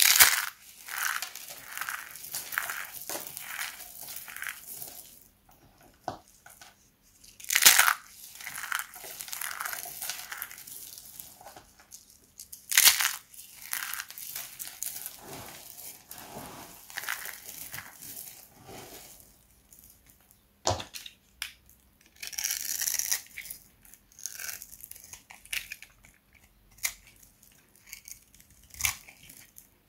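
Hands squeezing and crushing fistfuls of dry, hard soap shavings, a crisp crunching and crackling that comes in repeated squeezes. In the latter part, short sharp crunches as a box-cutter blade cuts into a bar of dry soap.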